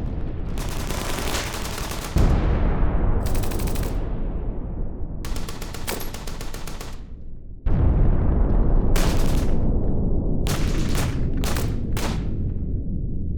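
Battle sound effect: repeated bursts of machine-gun fire over a constant deep rumble, with two sudden heavy blasts, about two seconds in and again about seven and a half seconds in, whose low rumble slowly fades.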